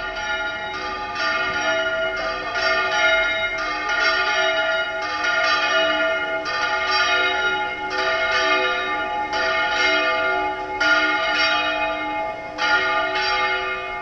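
Seville Cathedral's Giralda tower bells ringing in a peal, with several bells struck one after another about once a second, their tones overlapping and ringing on.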